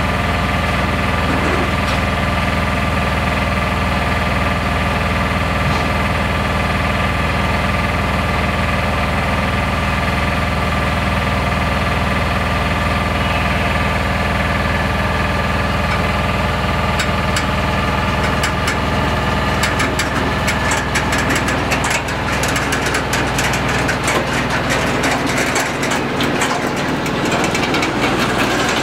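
Diesel locomotive engine idling steadily while the train stands. About two-thirds of the way in, the train starts to creep forward, and a growing run of clicks and rattles from the wagons' wheels and couplings joins the engine.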